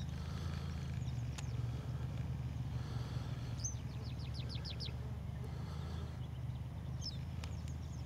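Yellow wagtail calling: a few short high chirps and a quick run of about seven high notes midway, over a steady low rumble.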